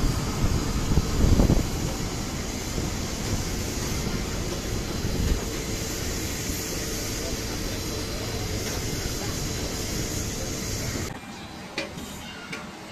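Steady drone and rush of a parked Boeing 787-9 airliner, with low buffeting thumps in the first second and a half. The noise cuts off abruptly about eleven seconds in.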